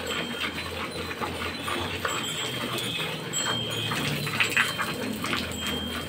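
Hand milking: jets of milk squirting in quick rhythmic streams into a steel bucket, each squeeze giving a short hissing spurt. A thin, high, whining tone sounds now and then over it.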